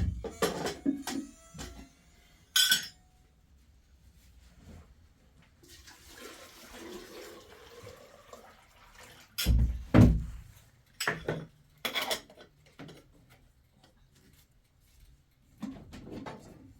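Hand-washing in a basin: water sloshing and pouring, with several sharp knocks and clatters, loudest about two and a half seconds in and again around ten seconds in.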